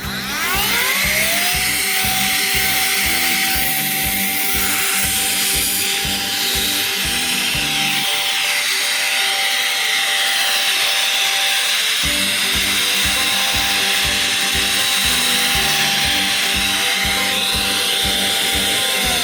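NICONON AR-229 cordless electric air duster's small high-speed motor spinning up with a rising whine. It runs at one steady high pitch with a rushing air hiss, then winds down near the end.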